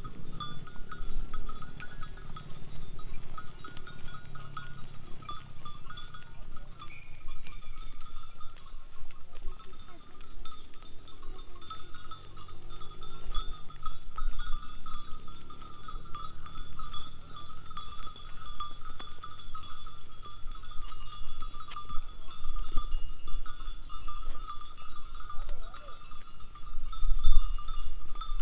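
Bells on a herd of sheep and goats clinking and jangling without pause as the animals move and graze, a busy, steady ringing.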